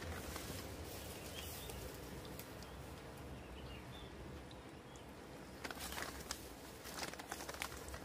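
Crumbed fish pieces deep-frying in a pan of hot oil over an open wood fire: a steady sizzle, with a few short crackles about six to seven seconds in.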